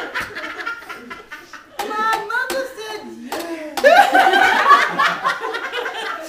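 A woman talking in an animated way, broken by several sharp hand claps or slaps.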